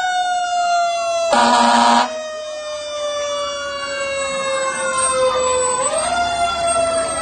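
Fire engine passing with its sirens on: a lower siren tone slowly falls, then rises again about six seconds in, under a higher siren wailing up and down. A loud air horn blast sounds about a second and a half in and is the loudest sound.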